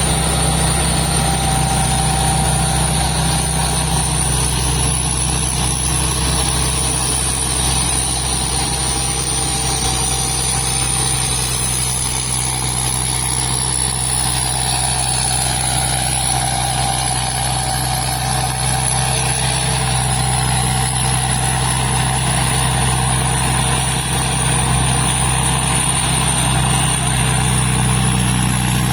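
Diesel engine of a large rice combine harvester running steadily, with a thin high whine that wavers slightly in pitch.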